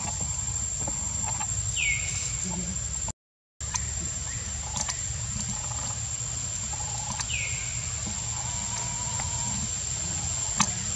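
Outdoor background of a steady low rumble and a steady high thin whine. Two short high calls fall in pitch, about five seconds apart, and the sound drops out briefly between them.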